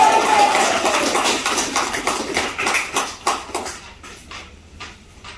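A small group of people clapping their hands, dense at first and thinning to a few scattered claps after about four seconds.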